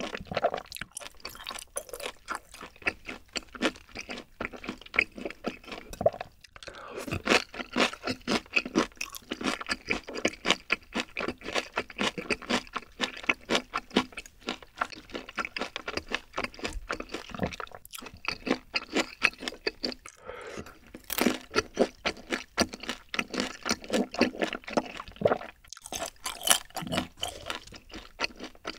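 Close-miked chewing of a mouthful of black-bean-sauce ramen noodles: wet, sticky mouth sounds and rapid small clicks, with a few brief pauses.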